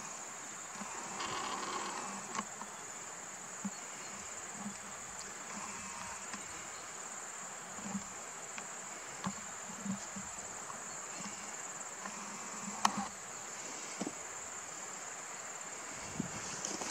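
Steady high-pitched insect chorus, with a few faint clicks and soft taps scattered through it.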